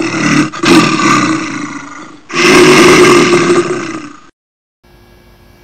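Two loud bear roars from a sound effect, each about two seconds long, the second ending about four seconds in; a faint steady hum follows.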